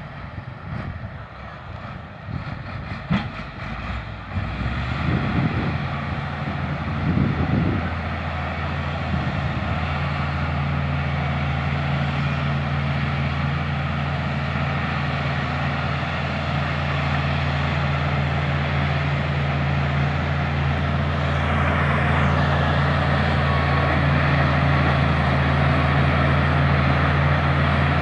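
LiuGong bulldozer's diesel engine running, rising and falling a couple of times a few seconds in, then holding a steady low note.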